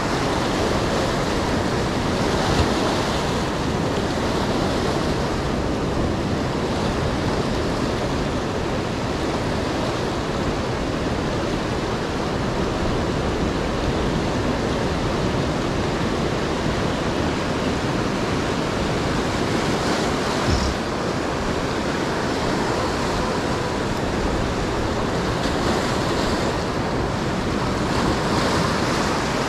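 Surf washing in over a rocky shore, a steady continuous wash, with wind buffeting the microphone. Two brief knocks stand out, about 2.5 seconds in and again about 20 seconds in.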